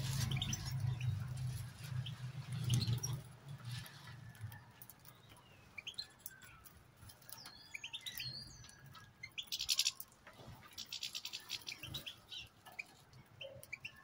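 European goldfinches chirping and calling, with short gliding call notes and two rapid twittering trills a little past the middle. A low hum is heard through the first three seconds.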